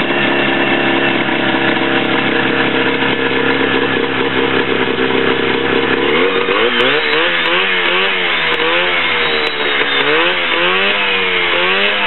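Attex 400 Chief's small air-cooled two-cylinder two-stroke engine running. It holds steady at first, then about halfway through it drops back and is revved up and down repeatedly, roughly once a second.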